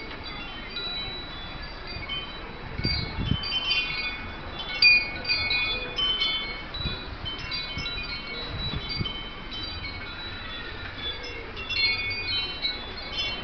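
Wind chimes ringing, several high tones sounding irregularly and overlapping.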